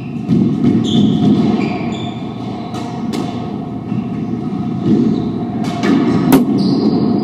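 Squash doubles rally: the ball smacks sharply off rackets and walls several times, the loudest hit about six seconds in, over the running feet of players on a hardwood court. Short high sneaker squeaks sound between the hits, and the court's echo fills out each hit.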